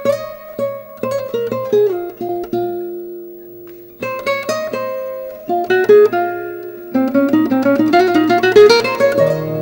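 Instrumental opening of a song: single notes picked on a plucked string instrument, a falling run of notes about a second in, a pause, then a rising run near the end.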